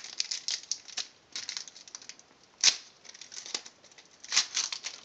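Foil trading-card booster pack wrapper crinkling as it is pulled open by hand: quick, uneven rustles with a louder crackle around the middle and another near the end.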